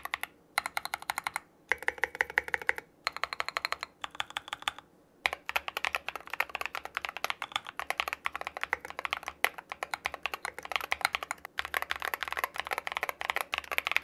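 Typing sound test on a custom-built TM680 mechanical keyboard with a metal plate and a two-piece plastic case. It opens with short runs of rapid keystrokes broken by brief pauses, then about five seconds in settles into steady fast typing.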